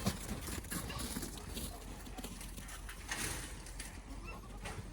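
Goats moving about a pen: rustling and scattered knocks of hooves.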